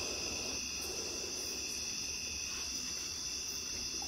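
Steady nighttime chorus of crickets: several continuous high trills at different pitches, with no break or change.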